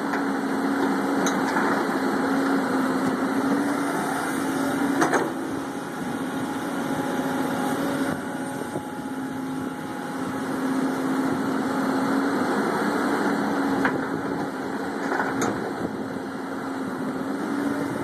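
Diesel engine and hydraulics of a Hyundai 210 crawler excavator running steadily under working load as it digs and loads sand, the engine note dipping slightly a few times. A few short sharp knocks sound over it.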